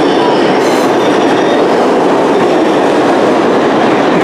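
New York City subway train noise at the platform: a loud, steady rumble and rush.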